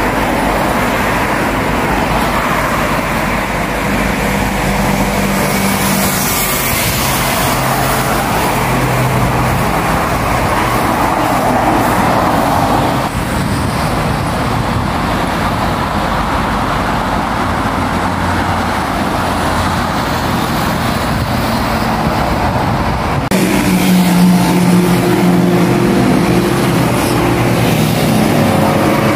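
Steady road traffic on a multi-lane expressway: car engines and tyre noise from passing vehicles. A heavier, louder engine hum sets in suddenly late on.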